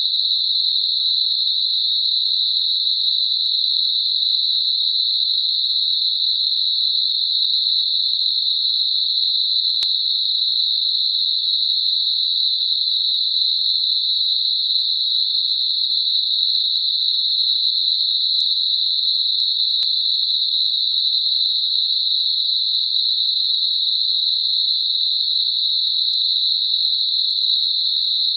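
Synthetic 4 kHz Gaussian narrow-band noise, made as a masker for high-pitched tinnitus: a steady, even, high-pitched hiss with nothing in the lows.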